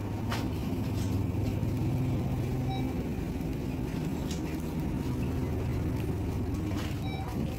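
Grocery store room tone: a steady low mechanical hum with a few faint clicks and knocks.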